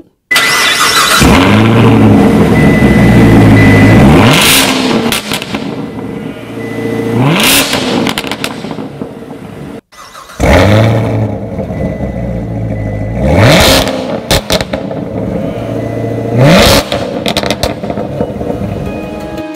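2019 Corvette ZR1's supercharged 6.2-litre LT5 V8 starting up cold with a loud flare in revs that settles to a high idle, then sharp rev blips. The sound cuts out briefly near the middle and the start-up and blips come again.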